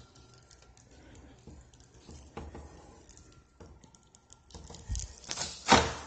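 Door being shoved open: faint clicks, then a low thump near the end followed by a short, loud scraping rush as the door swings.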